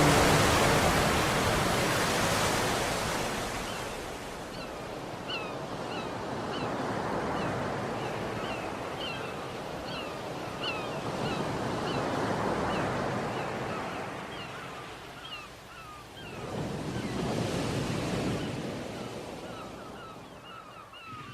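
Sea waves washing in, swelling and fading several times. From about four seconds in, birds give short, repeated calls.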